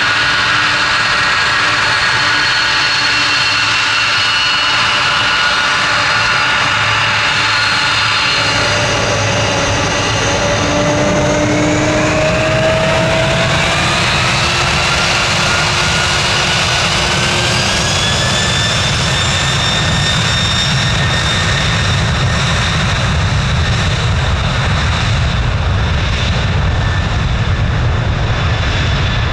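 Jet airliner's engines spooling up, likely for a takeoff roll: several whining tones rise in pitch over several seconds, then hold steady and high over a deep rumble that grows louder.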